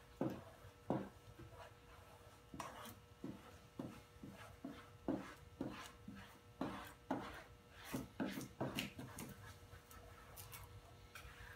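Hand squeegee rubbing textured carbon fiber vinyl film down onto a Can-Am Spyder F3's plastic knee panel in a dry mount: a faint, uneven series of short, quick swipes.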